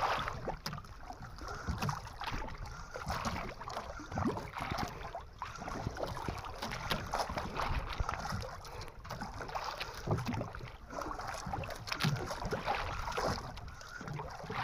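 Wind on the microphone and water sloshing and knocking against a small fishing boat, an uneven noise with frequent short knocks.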